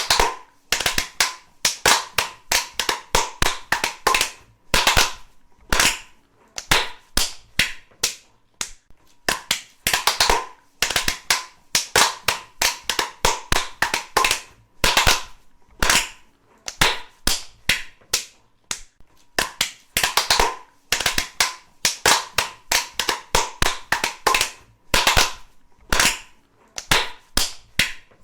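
One person's slow, sarcastic hand clapping: sharp single claps in short runs of a few at a time, with brief pauses between the runs, repeating over and over.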